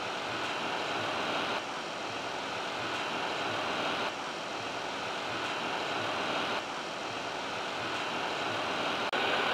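Steady rushing in-flight noise of an Airbus A330 on approach, airflow and engine sound, shifting slightly in level every couple of seconds.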